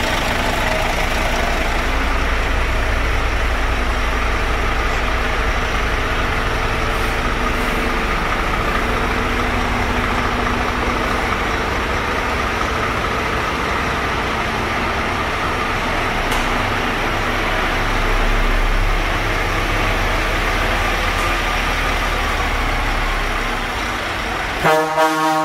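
Scania truck's diesel engine idling steadily. Near the end, a marine air horn starts to blow.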